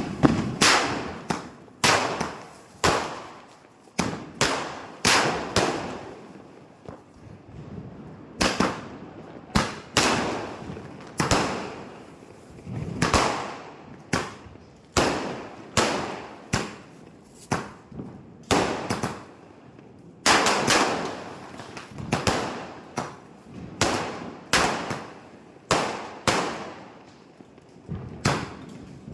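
Multi-shot aerial firework cake firing shot after shot: a steady string of sharp bangs, about one or two a second, each trailing off with a short echoing tail.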